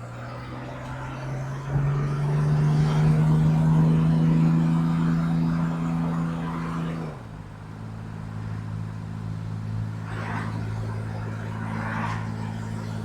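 Vauxhall Royale's 2.8-litre CIH straight-six engine running on the road. The revs rise about two seconds in and hold steady, then drop back smoothly about seven seconds in and stay even.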